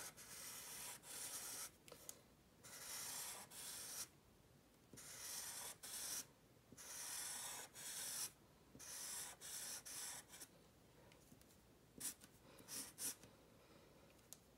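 Sharpie permanent marker drawn across paper in a series of faint strokes, each about a second long with short pauses between, ending in a few quicker short marks.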